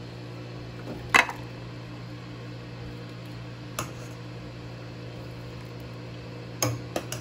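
A serving spoon knocks against the dishes a few times, sharpest about a second in, as beans and broth are ladled into a plastic bowl. A steady low hum runs underneath.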